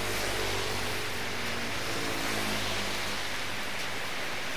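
Steady heavy rain falling on a road, with a motor scooter's engine passing on the wet asphalt in the first few seconds and a car driving past near the end.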